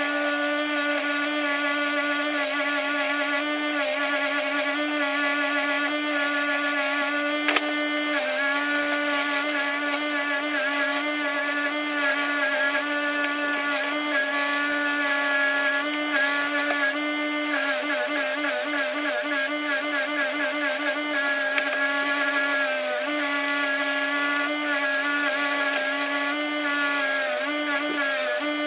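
Record Power bench grinder running with a steady motor hum, a cast aluminium bronze piece held against its wheel; the pitch sags and wavers as the metal is pressed on. One sharp tick about seven seconds in.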